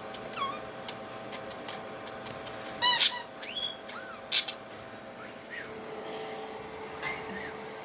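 Pet budgerigars giving a few short chirps that slide up and down, with a sharp click about halfway through, over a faint steady hum.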